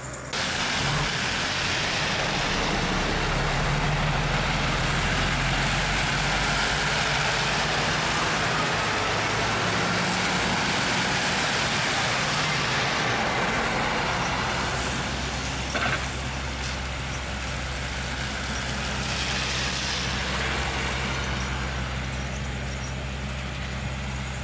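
Snowplow trucks driving through slush on a snowy road: engine running under a loud rushing hiss of tyres and plow in the slush. The hiss starts suddenly about a second in, eases after about fourteen seconds and swells again later, with a short knock near sixteen seconds.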